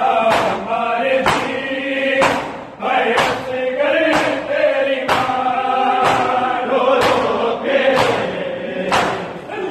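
A men's matam group chanting a Punjabi noha, a Shia lament, together. Many hands strike bare chests in unison, a sharp slap about once a second, in time with the chant.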